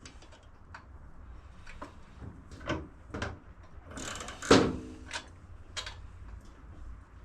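Scattered metal clicks and knocks as the engine and its mounting bolts are worked into the motorcycle frame brackets, with a louder clunk about four and a half seconds in.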